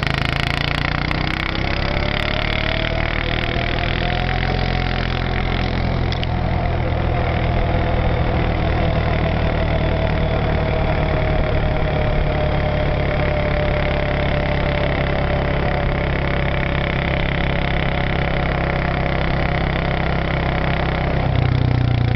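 Small motor vehicle's engine running at a steady speed, with a faint whining tone that rises over the first few seconds and then slowly sinks.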